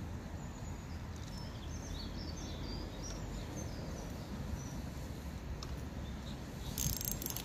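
Small birds chirping and singing in short phrases over a steady low rumble of wind on the microphone, with a brief high rustle near the end.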